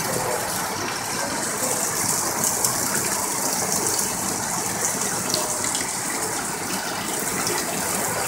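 Heavy rain pouring down steadily, with a stream of rainwater splashing into a plastic bucket as it fills.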